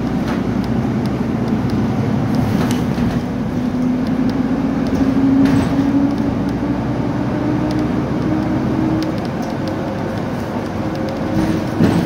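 Inside a Nova Bus LFS city bus under way: the engine and drivetrain drone steadily over road noise, with a tone that rises slowly in pitch for a few seconds and then holds. Light rattles throughout, and a short knock near the end.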